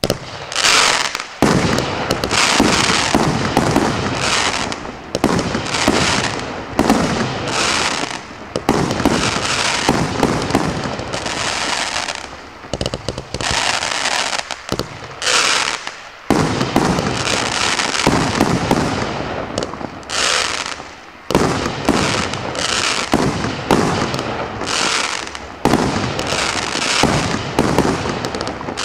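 1.3G display fireworks firing in a continuous barrage: shots and aerial bursts go off one after another with hissing between them, pausing briefly a few times.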